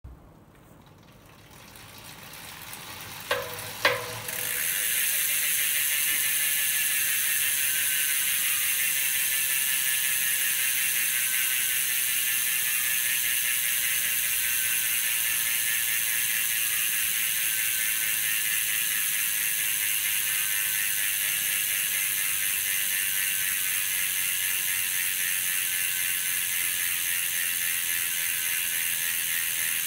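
Vision Metron 55 rear wheel freewheeling on a stand, its freehub pawls giving a loud, high ratcheting buzz that holds steady and slowly falls a little in pitch as the wheel coasts. The hub is run in after 500 km and rolls smoothly. Two sharp clicks come about three to four seconds in, just before the buzz settles.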